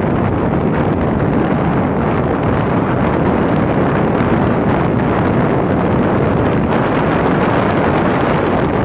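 Steady, loud wind rush buffeting the microphone of a phone carried on a moving motorcycle, with the ride's vehicle noise blended underneath.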